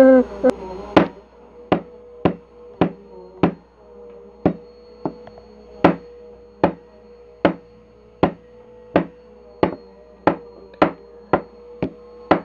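Steady series of sharp knocks on a tabletop, about one every two-thirds of a second, as Play-Doh is pounded with a hand-held tool.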